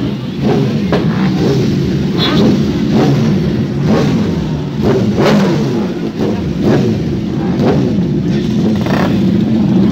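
Motorcycle engines idling with repeated throttle blips, the revs rising sharply about once a second.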